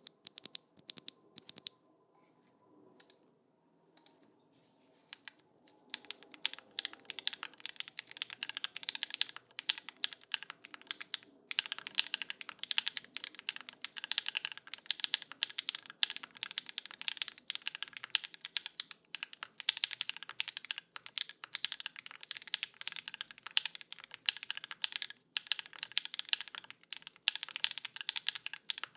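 Typing on a Class60 mechanical keyboard with stock Gateron Summertime V2 switches, aluminium plate and GMK keycaps. Scattered single key presses for the first few seconds, then steady fast typing with two short pauses.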